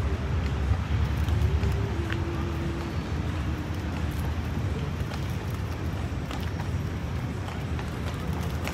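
Outdoor city ambience: a steady low rumble of road traffic with scattered faint clicks, and a faint held tone that steps down in pitch about two seconds in.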